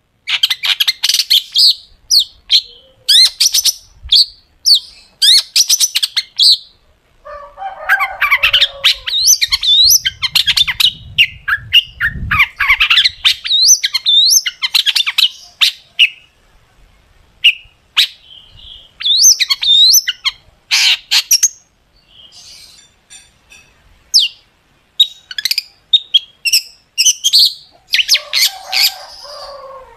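Long-tailed shrike (cendet) singing in loud bursts of rapid, sharp, piercing notes, with short pauses between phrases. A couple of harsher, lower rasping stretches come once near the start and again near the end.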